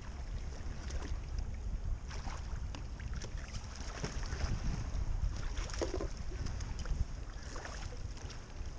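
Water splashing and lapping around a kayak, with irregular small splashes from a hooked tautog thrashing at the surface, over a steady low wind rumble on the microphone.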